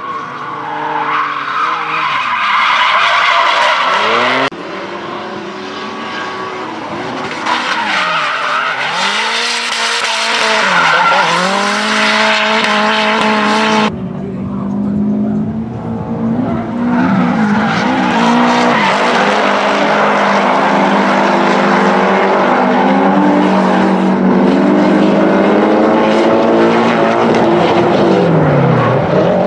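Several drift cars sliding in a group, engines revving hard and rising and falling in pitch with the throttle over a steady hiss of tire squeal. The sound changes abruptly about four and a half and fourteen seconds in.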